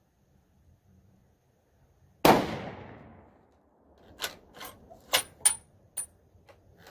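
A single shot from a .270 bolt-action hunting rifle about two seconds in, with a long fading echo, followed by about five sharp metallic clicks as the bolt is worked to extract the spent case and chamber the next round.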